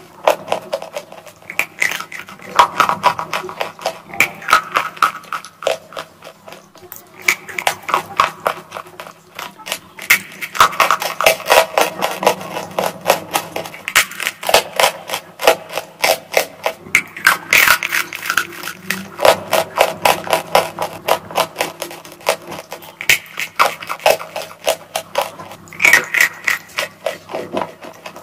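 Close-miked crunching and chewing of a compressed chalk bar: rapid crunches in runs of a few seconds, with short pauses between bites.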